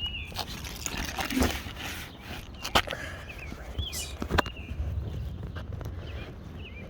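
Birds chirping in short calls at intervals, with a few sharp scuffs and knocks, the loudest about three seconds and four and a half seconds in, over a steady low rumble.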